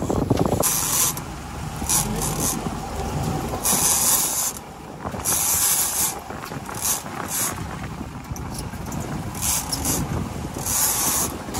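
Game-fishing reel's drag buzzing out line in a string of short bursts as a hooked fish runs, over the low rumble of the boat and sea.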